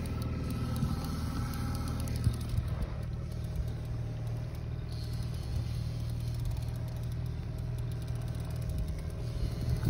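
A fishing boat's motor running steadily: an even low drone with a faint steady whine above it.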